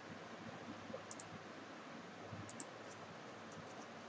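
A few faint computer mouse clicks, some in quick pairs, over a low steady hiss.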